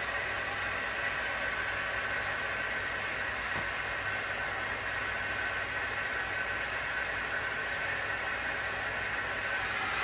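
Steady mechanical whir with an even hiss from a running small electric machine, level and unchanging.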